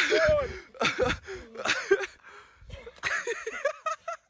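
A man's wordless strained cries and gasps in four short bursts as he struggles through deep, sucking mud.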